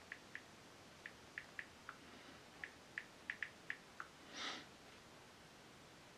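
Smartphone keyboard clicks: about a dozen faint, short taps at uneven spacing as text is typed on the phone, then a short breath through the nose about four and a half seconds in.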